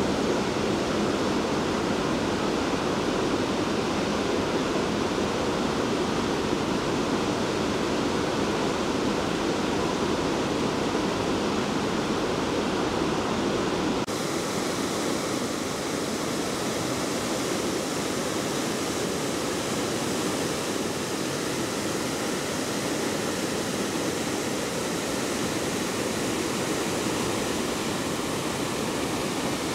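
Water rushing steadily over a weir on the Danube, a continuous rushing noise. Its tone changes abruptly about halfway through, becoming thinner in the low end and brighter in the high end.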